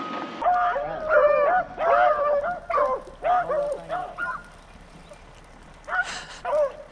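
Pack of beagles baying in quick, overlapping calls, falling briefly quiet, then baying a few more times near the end: the dogs are running a rabbit on its scent.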